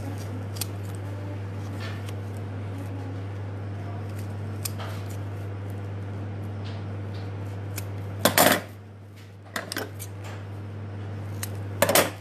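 Scissors cutting, with faint scattered snips and a few loud, short crunching cuts about eight seconds in and again near the end, over a steady low hum.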